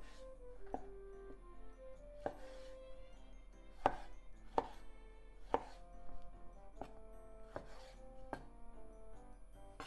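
Kitchen knife cutting tomato into bite-size pieces on a wooden cutting board, the blade knocking sharply against the board about once a second.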